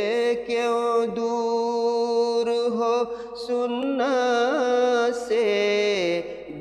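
A man's solo voice singing an Urdu devotional nazm (nazm-e-tauheed), drawing out long held notes with wavering ornamental turns between phrases, broken by a few brief breaths.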